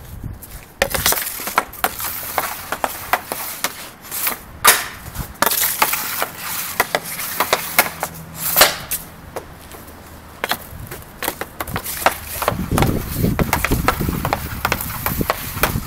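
Hockey stick blades striking a puck on a plastic shooting pad: a run of sharp, irregular clacks, with louder cracks about a second, four and a half seconds and eight and a half seconds in.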